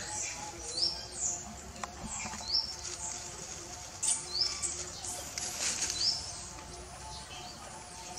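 Short, high, rising chirps repeating every second or so, with bursts of rustling in dry leaves.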